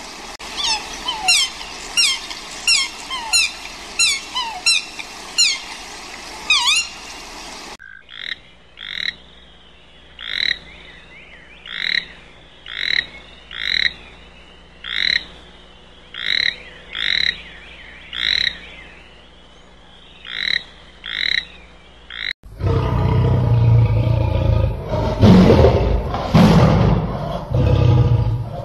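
Three recorded animal calls in turn, each cut off abruptly. First, a rapid run of short chirps sweeping down in pitch, about two a second. Then short paired calls about once a second, and from about 22 seconds in a loud, deep, rough call.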